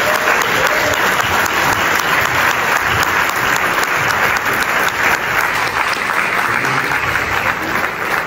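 Audience applauding steadily: many hands clapping in a hall.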